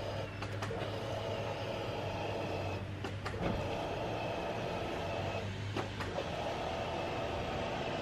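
Honda CRX's electric fuel pump running with a steady hum and whine, pushing fuel through the line to flush dirty fuel out. It stops about six seconds in, with a couple of brief clicks along the way.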